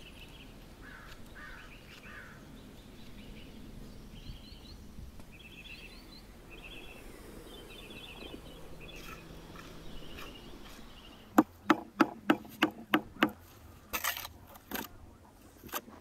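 Birds chirping over a quiet outdoor background. About eleven seconds in comes a quick run of seven sharp knocks, about four a second, then a few rougher knocks: bricks being knocked and set into place on a brick pillar.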